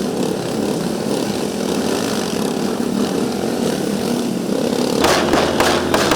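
An engine running steadily. About five seconds in, several short rushes of noise come over it.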